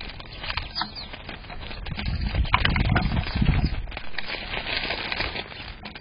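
A flock of house sparrows at a plastic seed tray: a few brief chirps over a busy patter of small clicks and wing flutters, with a low rushing flutter swelling in the middle.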